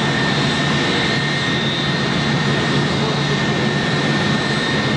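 Twin-engine jet airliner taxiing with its turbofans at low power: a steady rush with a high, even whine.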